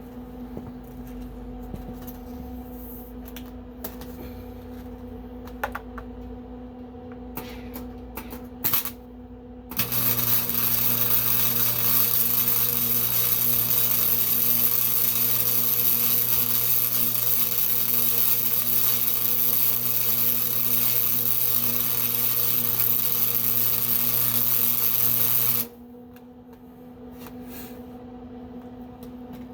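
Electric arc welding: a loud, steady hiss of the welding arc running for about sixteen seconds, starting about ten seconds in and cutting off sharply. Before and after, a steady hum from the welding machine with a few small clicks and taps.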